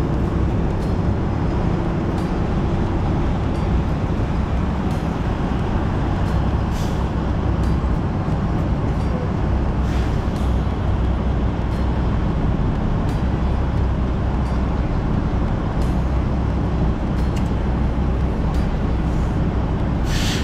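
Semi truck's diesel engine running with a steady low rumble, heard from inside the cab as the truck rolls slowly across a lot. A few short clicks come through, and there is a brief hiss near the end.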